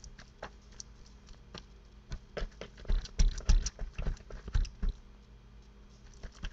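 Hands pressing a raw ground-meat meatloaf mixture into a thin aluminium foil loaf pan: an irregular run of soft squishes, pats and light clicks of the foil, busiest in the middle.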